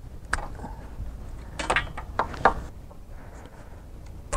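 A few sharp clicks and rustles of plastic MC4 solar-panel connectors and their cables being handled and pulled apart, with a louder click at the very end.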